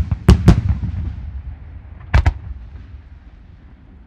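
Aerial firework shells bursting high overhead. Several sharp bangs come in the first half second and two more about two seconds in, each followed by a long, low rolling echo that fades out.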